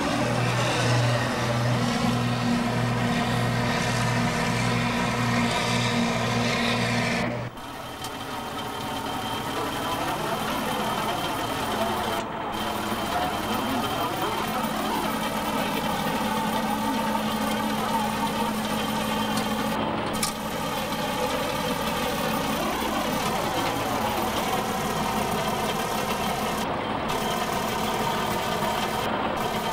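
Farm tractor's diesel engine running steadily at a constant speed, heard close by. The sound breaks off briefly about seven seconds in and carries on at the same steady pace.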